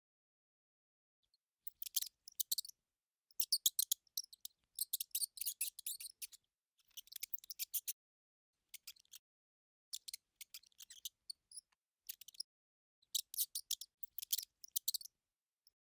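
Mouse sound effect: quick runs of high-pitched clicks and squeaks in about ten short clusters with brief silences between, starting about a second and a half in.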